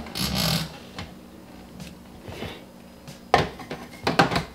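Clear plastic juice jug and its lid being handled and fitted at a juicer's spout on a stone countertop. A brief scraping rustle comes at the start, then a few sharp plastic clicks and knocks about three and four seconds in.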